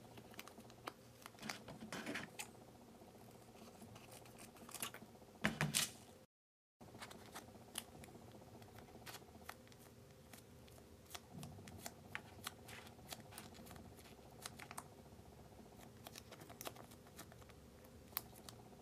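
Crinkling and crackling of a small plastic sachet of chocolate cream being torn open and squeezed out over a clear plastic tray, with the loudest rustles about two seconds and five to six seconds in.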